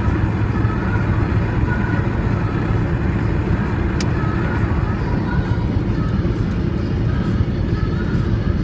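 Steady road and engine noise heard from inside a car's cabin while driving at speed, with a single small click about four seconds in.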